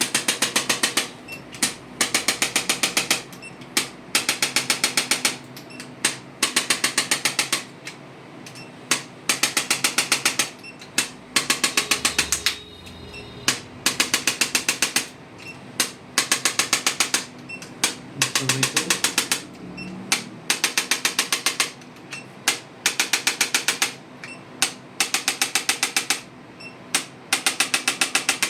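Rapid mechanical clicking, about a dozen sharp clicks a second, in bursts of roughly a second separated by short pauses, repeating steadily.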